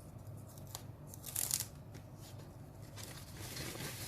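Handling noise from unboxing: a small click, a short scrape or rustle about a second and a half in, and a longer rustle near the end, as items are moved about by hand.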